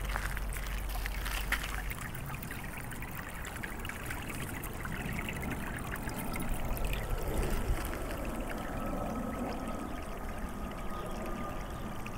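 Snowmelt water running and trickling along a street gutter as a steady rushing. A faint steady high whine comes in about halfway.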